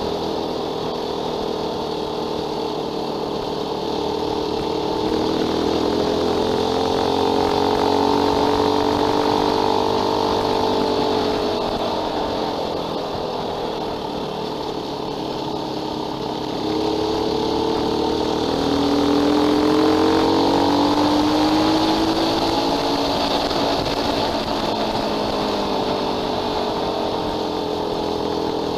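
Fantic motorcycle engine running on the move, its pitch climbing as it accelerates, easing back down, then climbing again.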